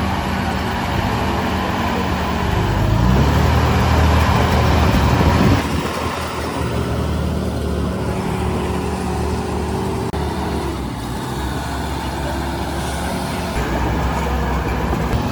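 Heavy construction machine's diesel engine running, revving up about three seconds in, then dropping back suddenly a couple of seconds later and running on more steadily.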